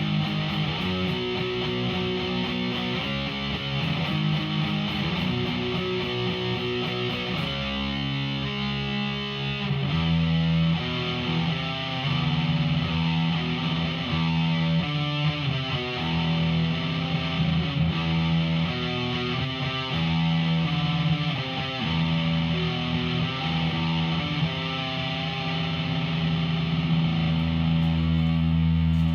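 Electric guitar played through a Behringer V-Amp Pro amp-modelling processor on a distorted setting, running through riffs and then holding long low chords from about ten seconds in.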